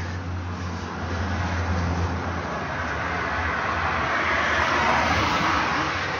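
Road traffic noise, with a vehicle passing and loudest about five seconds in.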